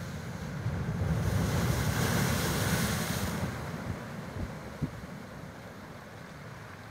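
Sea surf washing in among shoreline boulders: a wave surges into a loud hiss of foaming water about a second in, then eases back down, with wind rumbling on the microphone throughout.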